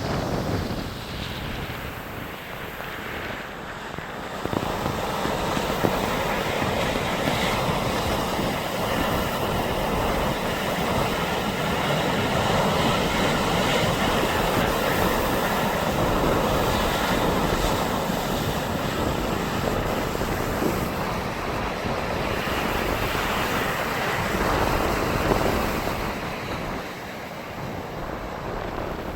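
Steady rush of sea surf mixed with wind buffeting the microphone. It swells louder a few seconds in and eases off near the end.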